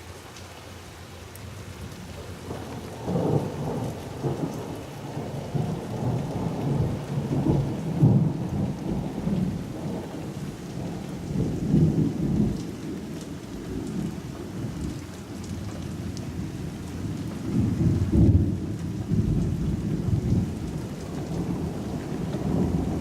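Rolling thunder over steady rain: a long low rumble builds about three seconds in and swells and fades in several waves, loudest around the middle and again near the end, while rain falls throughout.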